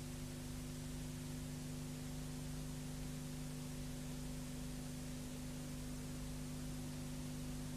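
Steady hiss with a low, steady hum underneath: the background noise of a VHS tape transfer, with no soundtrack playing.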